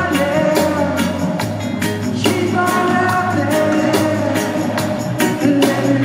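Reggae band playing live: electric guitar, bass guitar and drums keeping a steady beat, with a sung lead vocal, as heard from the crowd.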